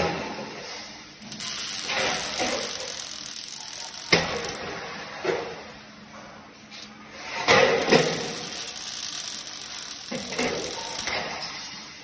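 Robotic arc welding on a steel frame: the arc crackles and hisses in several separate welds of a second or more each, with quieter gaps between them and a sharp click about four seconds in.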